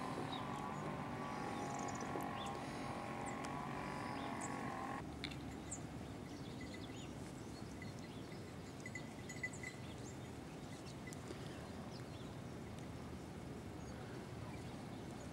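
A flock grazing in the open: soft tearing and chewing of grass with scattered small clicks. For about the first five seconds a steady droning hum runs underneath, then cuts off abruptly.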